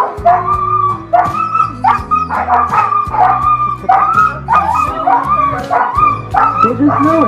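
A team of harnessed sled dogs yipping and barking excitedly, many short calls overlapping one after another, with background music underneath.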